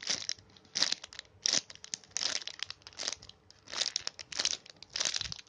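A paper squishy in a clear plastic bag being squeezed and handled: short bursts of plastic and paper crinkling, about two a second, uneven in spacing.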